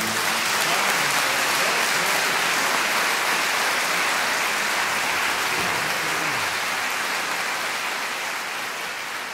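Concert audience applauding steadily, the clapping thinning slightly toward the end.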